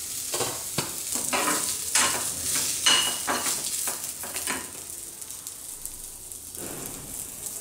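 Chopped onions, cumin and sesame seeds sizzling in oil in a small frying pan, with a steel spoon scraping and stirring them in repeated strokes for the first four or five seconds; after that the sizzle goes on alone.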